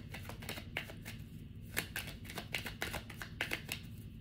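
Deck of tarot cards being shuffled by hand: a quick, irregular run of soft card clicks and flicks.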